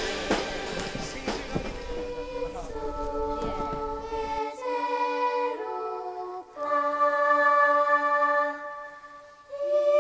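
Children's voices singing slow, long-held notes, following about two seconds of busy background clatter at the start.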